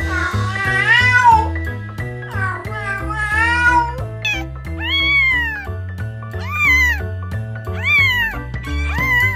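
Domestic cat meowing repeatedly, about once every second or so, over background music with a bass line.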